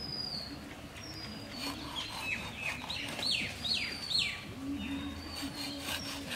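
Birds chirping: a run of quick, downward-sliding calls about two to four seconds in, over other high chirps, with a lower held call near the end and a few faint clicks.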